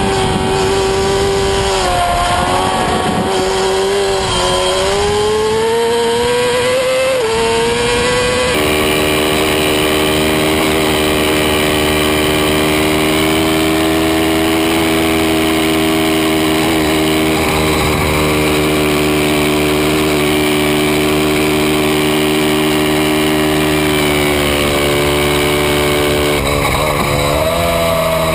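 Racing sportbike engine running hard at track speed, heard from a camera mounted low on the bike. Its pitch wavers and climbs in the first few seconds, changes abruptly about eight seconds in, holds steady for a long stretch, then shifts again near the end.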